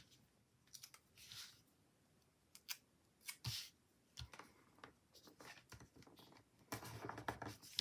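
Faint paper and sticker handling on a planner page: scattered light clicks and short soft rustles, busier near the end.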